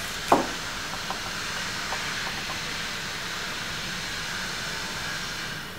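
A steady hiss with one sharp click about a third of a second in; the hiss stops shortly before the end.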